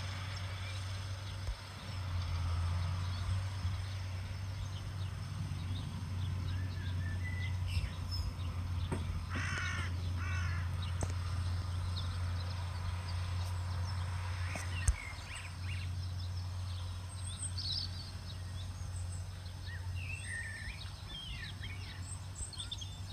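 Distant Case MXU 130 tractor running with its fertiliser spreader, heard as a steady low hum, with birds calling over it, loudest about ten seconds in and again near the end.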